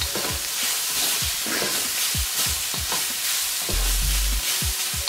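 Chicken and Thai basil sizzling in a hot pan while being stir-fried, with a utensil repeatedly scraping and knocking against the pan, a few strokes a second. The basil is being cooked until it wilts.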